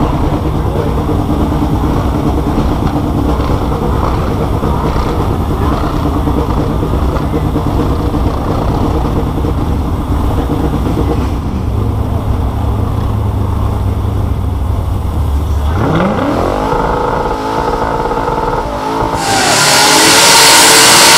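LS1 5.7-litre V8 in a Holden HQ wagon idling steadily, then revving up sharply about three-quarters of the way through and holding high revs. Near the end the burnout starts and gets much louder: the engine at full revs under the hiss of spinning, smoking tyres.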